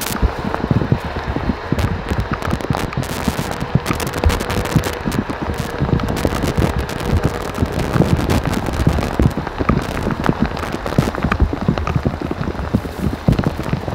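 Heavy rain in a storm, with dense raindrops pattering close to the microphone as many quick irregular clicks over a steady hiss and a low rumble underneath.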